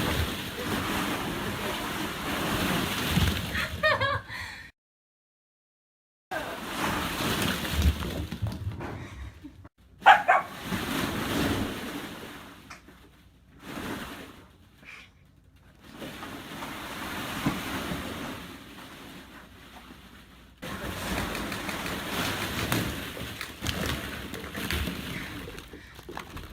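A dog gives short, high cries, once about four seconds in and again about ten seconds in, over a steady rushing, sloshing noise. The sound drops out completely for about a second and a half between them.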